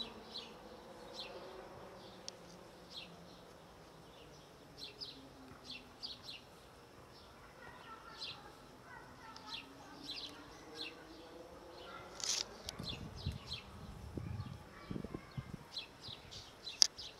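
A fly buzzing close by, its hum rising and falling in pitch as it moves about. Small crisp ticks come irregularly throughout, with a sharp click near the end.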